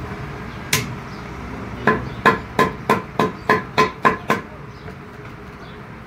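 Small hammer striking a Fiat 480 tractor's steel brake shoe, with new brake lining on it, against a post stand: one blow, then a quick run of about nine blows, about three a second, each with a short metallic ring.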